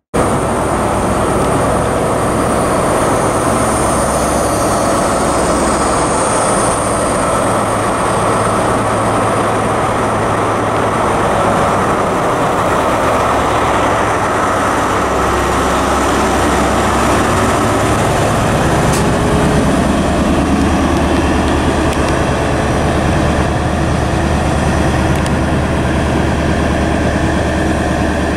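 Diesel passenger trains at a station: a steady, loud rumble of engines and rolling stock throughout, with a deeper engine hum from about halfway through as an HST led by a Class 43 power car approaches.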